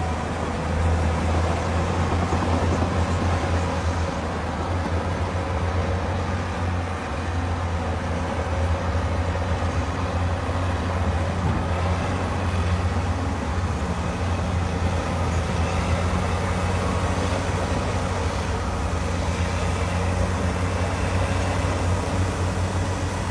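Heavy diesel engine of a paddle (elevating) scraper running steadily, a continuous low drone.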